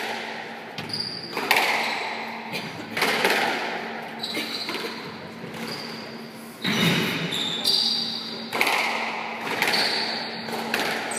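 Squash rally: the ball smacked by rackets and off the walls about every second or so, each hit echoing around the court, with short high squeaks of shoes on the wooden floor between hits.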